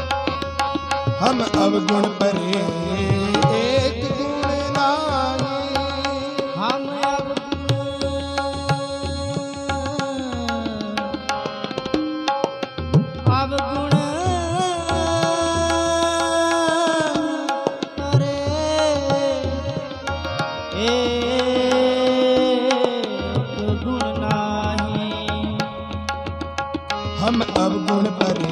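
Sikh kirtan: harmoniums and a tabla playing a devotional hymn, with a man singing long, wavering held notes over them.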